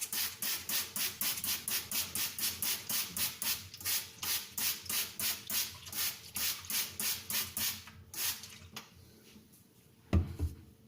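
Fast back-and-forth rubbing strokes on the face of an aluminium-oxide whetstone, about three or four a second, cleaning the swarf off the stone. The rubbing stops about eight seconds in, and a single knock follows near the end.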